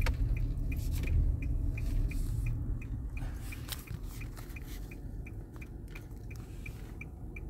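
Inside a car: low engine and road rumble that gradually fades, with an even ticking about three times a second from the turn-signal relay.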